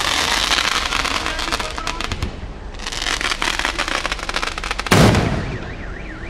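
Aerial fireworks bursting overhead: two long spells of dense crackling, then a single loud bang about five seconds in.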